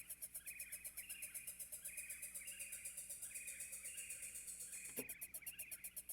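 Massive X software synthesizer playing its "Birdie Hats" preset: a fast, even run of hi-hat-like ticks, about eight a second, under repeating bird-like chirps.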